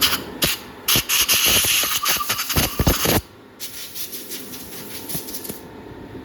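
Compressed-air blow gun blasting in short, hissing bursts to clear metal chips from a freshly tapped head bolt hole in an engine block. The loudest blasts come about one to three seconds in, followed by fainter ones that stop a little past halfway.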